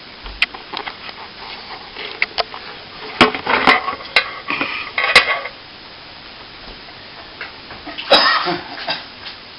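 Metal plastering tools clinking and scraping: a run of sharp knocks and scrapes a few seconds in, then another short clatter near the end.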